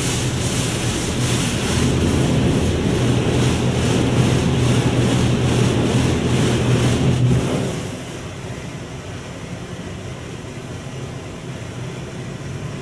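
D&S 5000 automatic car wash spraying water over the car, heard from inside the car: a dense hiss of spray over a steady machine hum. It stops about eight seconds in, leaving a quieter hiss.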